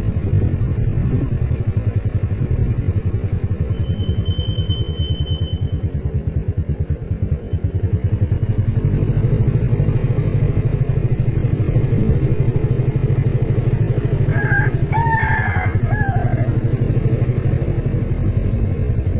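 Motorcycle engine running steadily at low speed while riding, with a rooster crowing once about fifteen seconds in.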